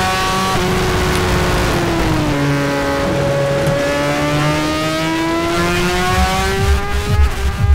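BMW S1000RR superbike's inline-four engine running at high revs. Its pitch dips about two seconds in, then climbs steadily.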